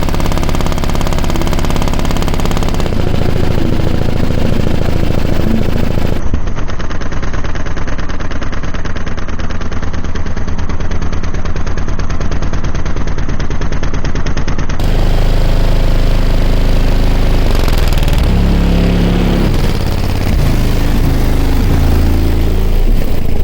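Very loud bass played through a car audio system of six 21-inch subwoofers, with a fast, even rattling pulse.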